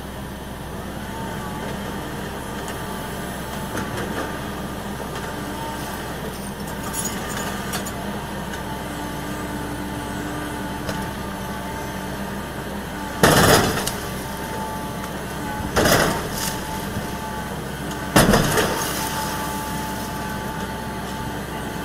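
Hitachi high-reach demolition excavator running steadily while its attachment breaks into the building's concrete columns, with three loud crashes of concrete breaking and falling a few seconds apart in the second half.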